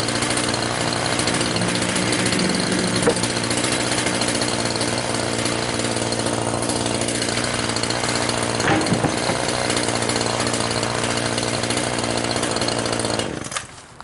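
Power saw running steadily while cutting sawmill scrap slabs into firewood lengths, with a couple of brief knocks, then shutting off about a second before the end.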